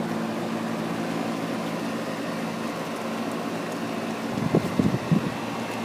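Rheem 10-ton packaged air-conditioning unit running after start-up: a steady mechanical hum of its compressor and condenser fan, with several fixed tones. From about four seconds in, irregular low rumbling buffets come in over the hum.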